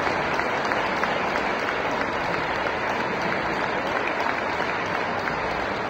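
A congregation applauding steadily in a large stone church, the clapping dense and continuous.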